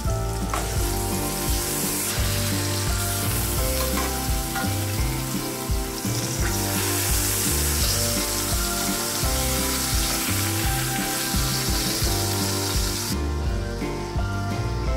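Pork tenderloin searing in hot oil in a cast-iron skillet: a steady sizzle, with a few clicks as tongs turn the meat. The sizzle cuts off near the end.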